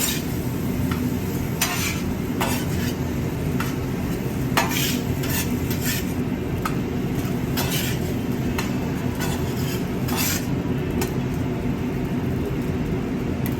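Metal spatulas scraping and clacking on a hot flat-top grill as fried rice is pushed and scooped up, with irregular strokes over a steady sizzle.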